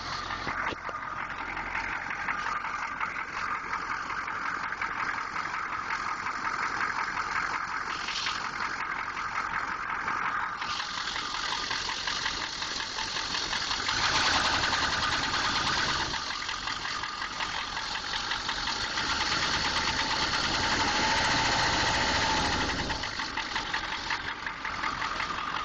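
A 6.2-litre engine running with a rapid knocking tap, which the owner presents as an engine knock. It gets louder twice for a few seconds.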